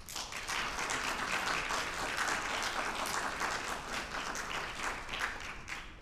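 Audience applauding, starting suddenly, going on steadily for several seconds and dying away just before the end.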